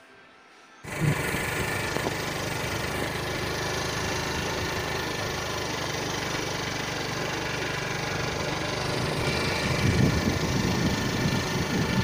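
Motorcycle engine running steadily while under way, with road and wind noise; it begins abruptly about a second in, after a brief near-quiet moment.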